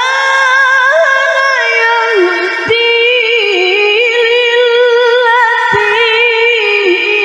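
A woman chanting the Quran in the melodic tilawah style, in a high voice amplified through a microphone. She holds long notes with wavering, melismatic ornaments, breaking off briefly twice.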